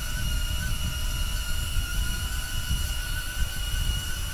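Steady high propeller whine of a small HoverAir X1 camera drone hovering overhead, under heavy wind buffeting on the microphone.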